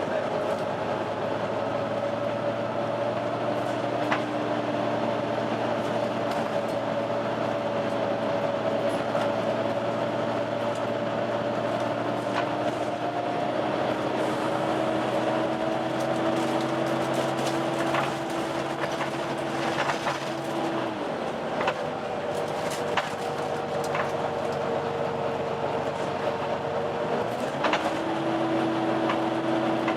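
Volvo B9TL bus running with its cooling fan making the steady vacuum-cleaner-like 'hoover' whine, several steady tones together. The pitch creeps slowly upward, drops lower about two-thirds of the way through, and comes back up a few seconds before the end, with a few faint clicks along the way.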